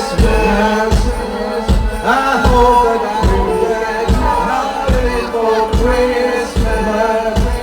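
A rock band playing live: a steady beat of heavy low drum thumps about every second, with a melody over it. It is recorded loud on a phone.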